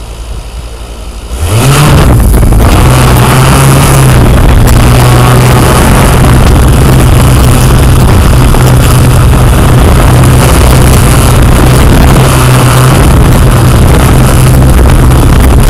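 Yuneec Q500+ quadcopter's motors and propellers spinning up about a second and a half in, rising in pitch, then running at a steady pitch as the drone takes off and flies.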